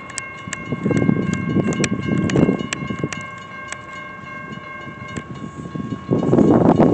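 Railroad grade-crossing bell ringing in quick repeated strikes, stopping about five seconds in. Two spells of low rumbling noise, about a second in and again near the end.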